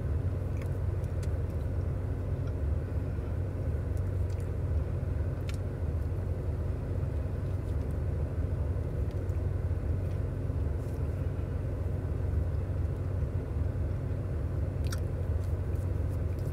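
Steady low rumble of an idling car engine heard from inside the cabin, with a few faint clicks of eating over it.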